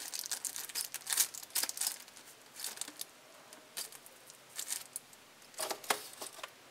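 Clear plastic bag around a pair of cutting pliers crinkling as it is handled, in irregular short rustles with brief pauses.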